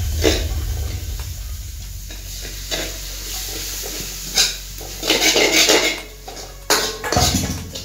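Metal ladle scraping and clanking against an aluminium kadai as sliced onions are stirred while frying in oil, with sizzling underneath. The scrapes come irregularly, the longest and loudest spell about five seconds in.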